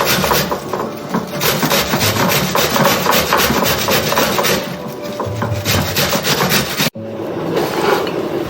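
An onion being grated by hand on a metal grater: quick, repeated rasping strokes. The grating breaks off suddenly about seven seconds in, and a duller rubbing sound follows.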